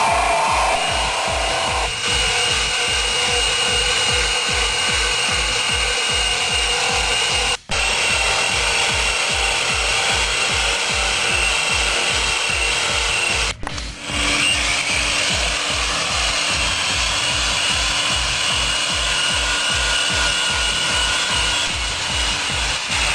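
Angle grinder running with an attachment working material: a steady whine with rasping. It plays under background music with an even beat, and cuts out briefly twice, about a third of the way in and just past halfway.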